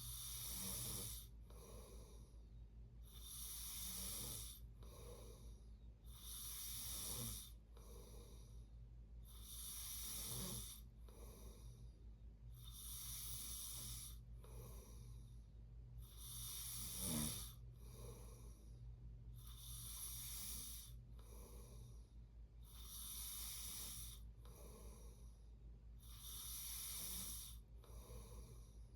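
A sleeping person snoring, with one breath about every three seconds in a regular rhythm. A steady low hum runs underneath.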